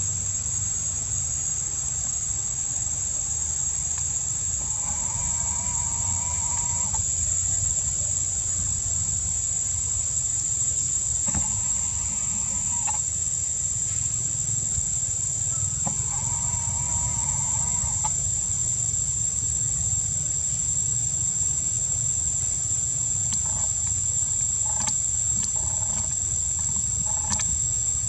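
Forest insects shrilling steadily at one high pitch. Three fainter, drawn-out calls of about two seconds each come and go in the middle, and a few light ticks sound near the end.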